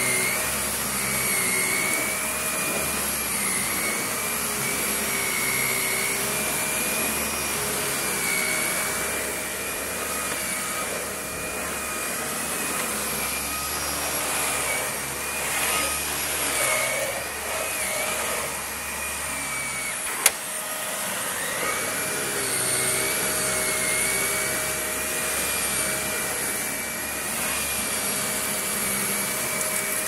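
Dyson upright vacuum cleaner running on thick carpet, its motor whine wavering in pitch as the head is worked back and forth. A single sharp click comes about two-thirds of the way through.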